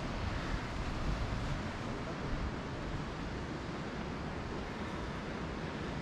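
Wind buffeting the microphone over a steady rush of sea surf breaking on the rocky shore below.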